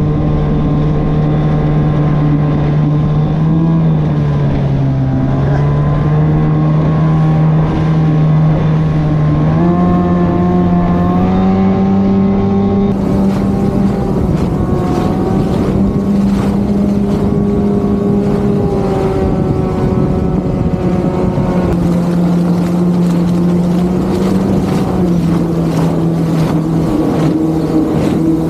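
Small outboard motor running at speed, pushing an inflatable boat over the water. Its pitch steps up about ten seconds in and eases down again after twenty seconds as the throttle and load change.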